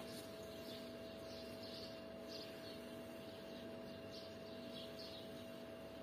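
Faint small-bird chirping, a few short chirps a second, over a steady low hum.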